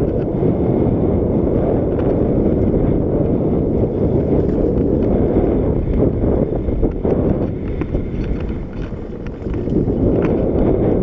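Wind rushing over the microphone of an action camera on a moving mountain bike, mixed with the tyres rumbling over the gravel trail and small clicks and rattles from the bike. The noise eases briefly about eight seconds in, then picks up again.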